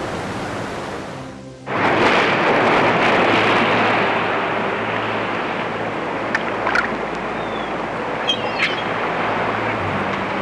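Ocean waves washing, then a sudden cut about two seconds in to a louder rush and splash of sea water. Soft background music with steady low tones plays under it, and a few short high chirps come near the middle and end.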